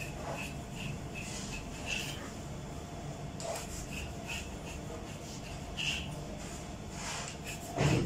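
Trays of biscuits being handled on a stainless-steel worktable: light scrapes, rubs and small ticks, a few louder scrapes among them, over a steady background hum.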